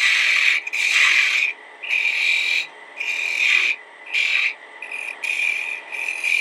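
A narrow turning chisel cutting a small sycamore blank spinning on a wood lathe. The scraping cut comes in about eight short passes of around half a second each, with brief pauses between them.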